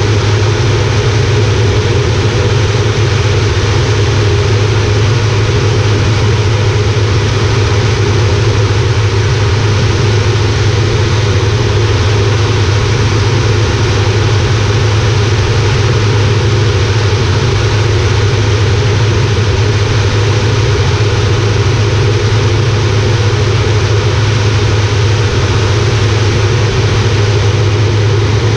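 Air Tractor 402B's Pratt & Whitney PT6A turboprop engine and propeller droning steadily in flight, heard from inside the cockpit. There is a strong low hum with a wide rush of noise over it, and neither pitch nor level changes.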